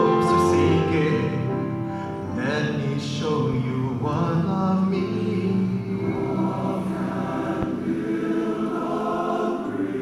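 A large men's chorus singing held chords.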